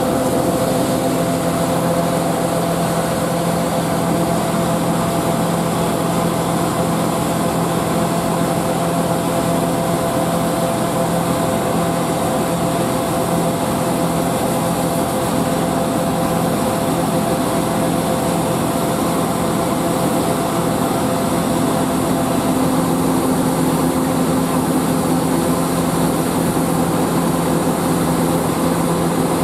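John Deere 9570 STS combine running steadily with its unloading auger engaged, shelled corn pouring from the auger into a truck box. The engine and machinery give an even drone with several steady tones.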